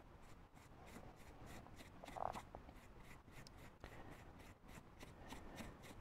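Faint, rhythmic scratching of a small paintbrush dry-brushing acrylic paint over an EVA-foam buckle, a few strokes a second, with one brief louder soft sound about two seconds in.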